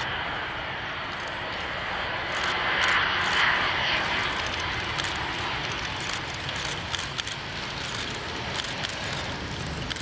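Jet engines of a twin-engine Boeing 777 airliner landing, a steady rushing noise that swells about three seconds in and then eases as it flares over a wet runway.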